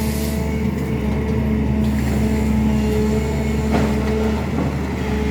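SANY excavator's diesel engine running steadily, with a short noise just before four seconds in.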